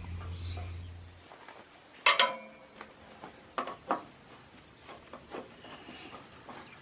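Metal parts being handled: one sharp metallic clink with a short ring about two seconds in, then a few light knocks. A low hum stops about a second in.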